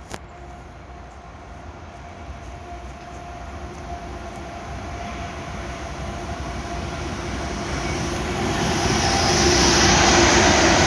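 Freight train approaching, its rumble and rail noise growing steadily louder, with a faint steady tone held through it.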